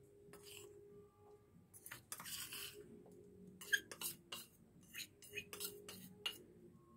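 A metal spoon scraping and then tapping against a small stainless-steel bowl, a run of light clinks as cornflour is knocked out of it.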